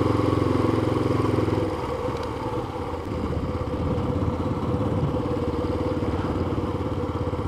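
Yamaha FZ25 motorcycle's single-cylinder engine running while riding. The engine note drops and quietens about two seconds in, then runs on steadily at lower revs.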